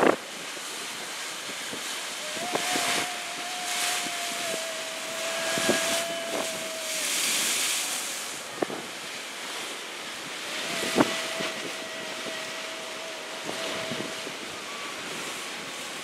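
Waves crashing and washing against jagged coral rock, the rush swelling in several surges, with wind buffeting the microphone and a few sharp knocks. A steady whistle-like tone sounds twice, each time for a few seconds.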